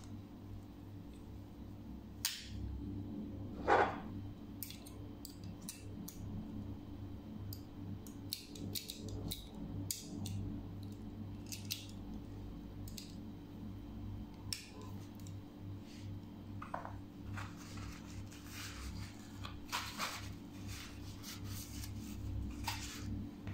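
Stainless steel multitool being folded up by hand: repeated small metal clicks and clinks as its pliers and fold-out tools are swung and snapped shut, with one louder click about four seconds in. A steady low hum runs underneath.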